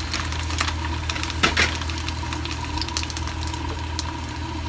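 Frozen dried fish (daing na galunggong) sizzling and crackling in hot oil in a frying pan, with one louder pop about a second and a half in. A steady low hum runs underneath.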